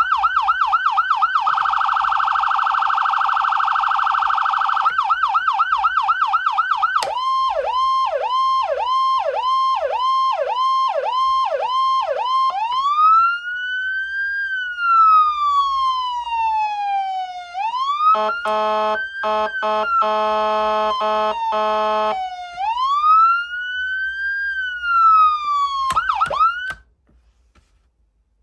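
Whelen 295SLSA6 electronic siren amplifier cycling through tones. First comes a fast yelp, then a faster pulsing stretch. Next are about two falling chirps a second, then a slow rising-and-falling wail, broken by an air-horn blast that stutters on and off; it cuts off suddenly near the end.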